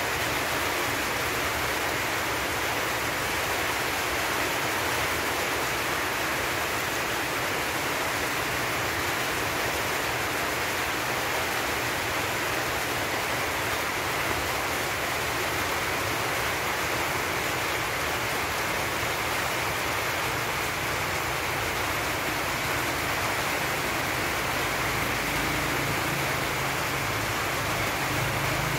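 A steady, even rushing hiss with no breaks, strokes or changes in level.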